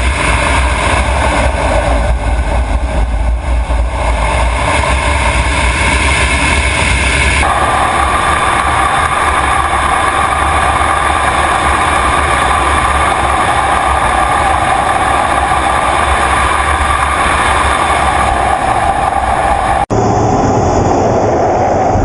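Jet fighter engines running: a loud, steady noise. It changes abruptly to a different recording about seven seconds in and again about two seconds before the end.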